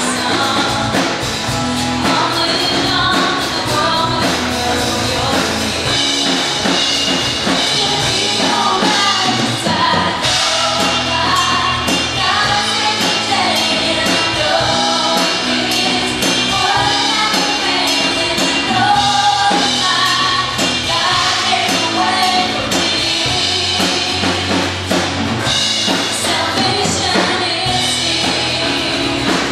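Live worship band playing a rock-style song: vocalists singing over drum kit, electric and acoustic guitars, bass and keyboard.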